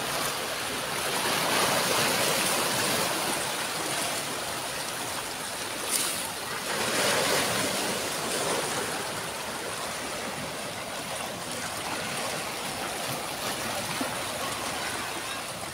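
Small sea waves washing in and draining over a rocky reef shore, a steady rush that swells louder twice.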